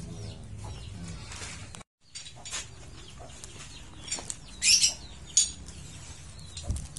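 Motorcycle clutch friction plates and steel plates clinking against each other as they are handled, with a few sharp clinks in the second half and a dull knock near the end. The sound breaks off completely for a moment about two seconds in, and faint bird calls sit behind.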